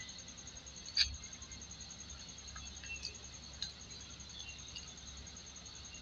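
Faint clicks and scrapes of a metal ice cream scoop handled against a plastic tub and digging into frozen ice cream, the sharpest click about a second in. A steady faint high ticking runs underneath.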